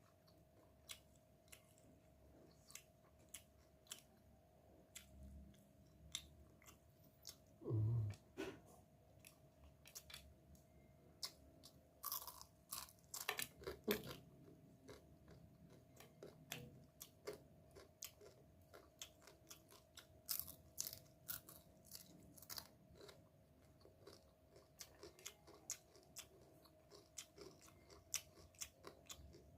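Close-up chewing and crunching of crispy seasoned paddy crab: many small crackles, with a few louder crunches around the middle and a low thump a little before that.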